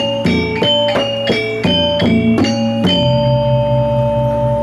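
Balinese gong kebyar gamelan playing: metallophones strike a ringing melodic figure at about three strokes a second. About three seconds in, the figure stops on a large gong stroke, whose low tone rings on with a steady pulsing wobble, closing the piece.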